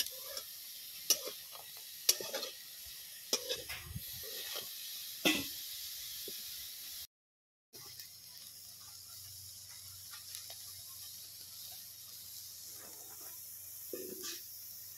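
Prawns sizzling in hot oil in a large iron kadai, with a metal spatula scraping and clanking against the pan several times in the first five seconds. The sound drops out completely for under a second about seven seconds in, then the sizzle goes on steadily with a couple more spatula scrapes near the end.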